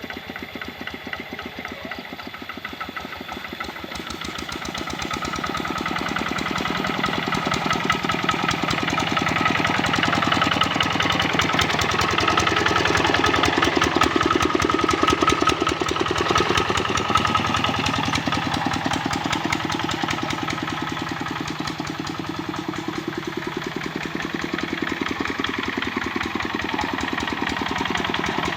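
Kubota RD65 single-cylinder diesel engine on a hand tractor running under load while pulling a harrow, a steady rapid chugging. It grows louder after a few seconds, eases about two-thirds of the way through and swells again near the end.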